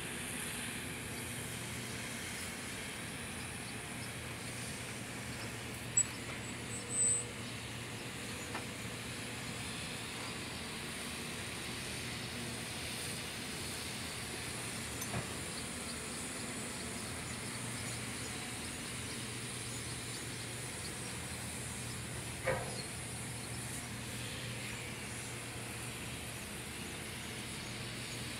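An engine running steadily with a low, even hum and a light hiss. There are two short high beeps about six and seven seconds in, and a single sharp knock about twenty-two seconds in.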